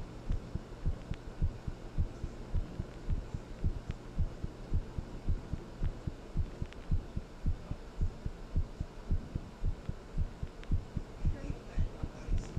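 A human heartbeat beating steadily, each beat a low double thump (lub-dub), over a faint low steady hum.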